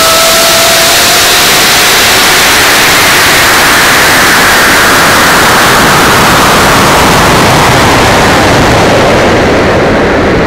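Loud rushing air noise from a rocket's onboard camera as the rocket coasts upward, a hiss that sinks steadily in pitch as the rocket slows toward apogee. A faint steady whistle fades out in the first second.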